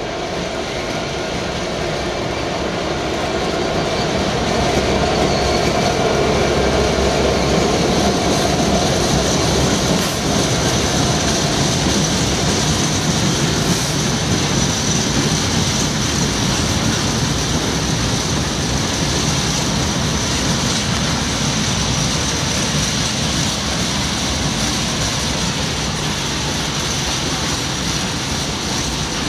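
GBRF Class 66 diesel-electric locomotive, its two-stroke EMD V12 engine loudest a few seconds in as it passes close by, followed by a long rake of open freight wagons rolling past with a steady rumble and clatter of wheels over the rail joints, and a steady high ring above it.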